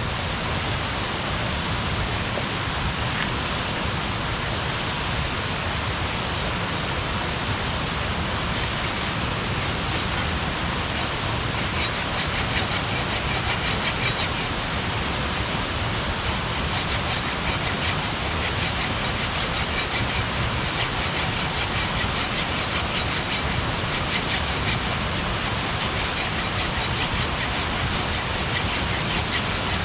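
Campfire burning: a steady hiss with faint, quick crackles of burning wood that thicken from about halfway through.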